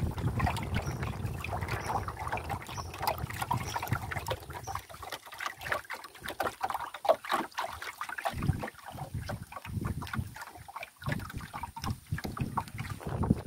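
Wind rumbling on the microphone, then, about four seconds in, a busy run of small knocks, clicks and splashes in and around a small wooden canoe.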